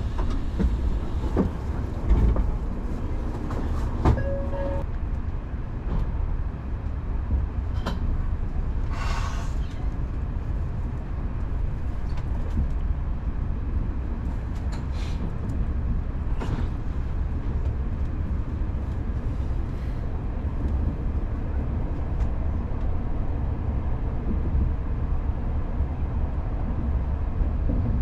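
Interior of a Tokaido Shinkansen bullet train in motion: a steady low rumble, with a few sharp clicks early on and a brief hiss about nine seconds in.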